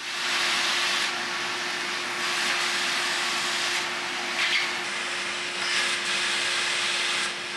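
Laguna SmartShop Fiber Laser FC cutting sheet metal: a steady hiss from the cutting head, with a steady hum under it.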